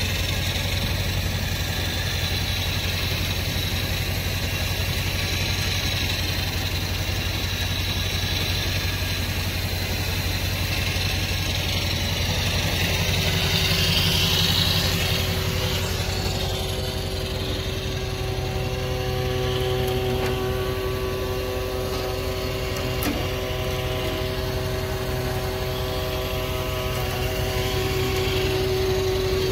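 Vehicle engine idling steadily, with a steady higher whine joining it about halfway through.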